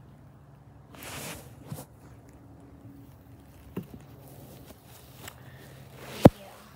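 Soft rustling steps of bare feet on dry grass with a few light taps, and one sharp click near the end, the loudest sound; a faint steady low hum runs underneath.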